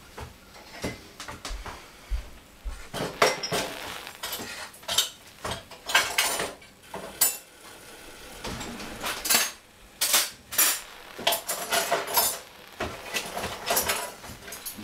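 Dishes and metal kitchen utensils clinking and clattering in a string of irregular knocks, as kitchenware is handled.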